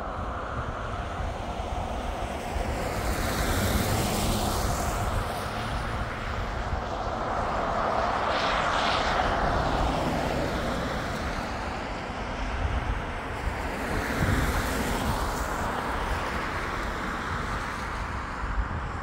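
Vehicles passing by one after another, about three passes, each swelling and fading away.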